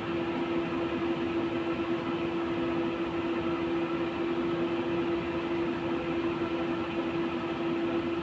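Inside a 71-911EM low-floor tram running along the line: a steady rolling rumble of the car with a constant electric hum holding one pitch throughout.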